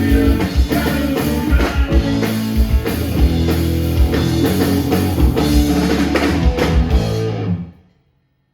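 A punk rock band playing live at full volume: drum kit, electric guitar and bass, stopping abruptly near the end.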